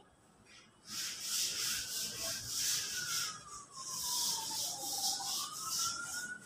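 Rubbing and rustling noise right on the phone's microphone as the handheld phone is moved about, starting about a second in. Under it a faint thin whistle-like tone slowly falls, then jumps up and rises again.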